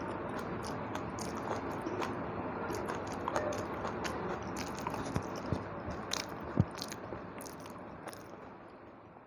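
Close-miked eating sounds of a person chewing a meal of rice and fish curry, with many small sharp mouth clicks. The sound fades away near the end.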